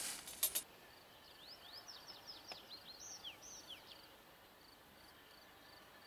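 Faint birdsong: a small bird singing a quick run of high, rising and falling chirping notes for a few seconds, over a quiet open-air background.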